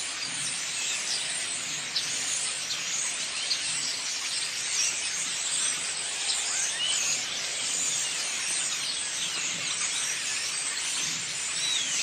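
A flock of many small birds calling at once in the trees: a dense, unbroken wash of overlapping short, high chirps and twitters.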